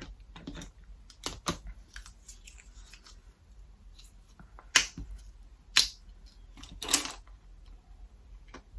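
Small sharp clicks and taps of contact lens packaging being handled and opened, with three louder clicks in the second half.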